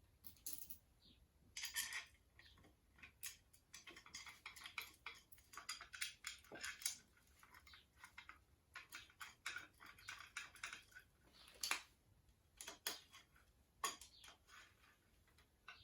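Irregular light metallic clicks and clinks of hand tools and small metal parts being handled on a motorcycle engine, with a few sharper clicks.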